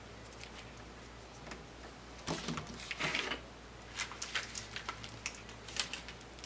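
Faint handling noises of a replacement laptop screen and its display cable: a brief rustle about two seconds in, then a scatter of small, light clicks and taps.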